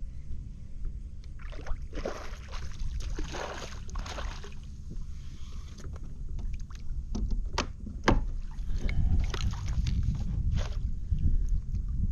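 Water splashing and sloshing around a fishing kayak, in several rough bursts, with a couple of sharp clicks about two-thirds of the way through, over a steady rumble of wind on the microphone.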